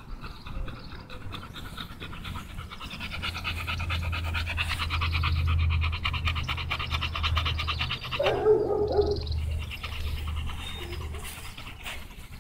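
American bully dog panting rapidly and steadily with its mouth open. The panting breaks off briefly for a short louder sound about eight seconds in, then carries on.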